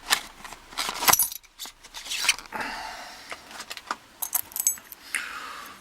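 A padlock's keys jingling and clinking as the lock and keys are taken out of their packaging. There are two spells of metallic jingling, about a second in and again after four seconds, with clicks and rustling of the packaging in between.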